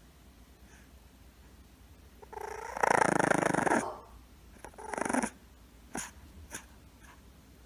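An English bulldog puppy growling twice: a long rough growl beginning about two seconds in, rising in pitch at its start, then a shorter one around five seconds in, followed by two faint clicks.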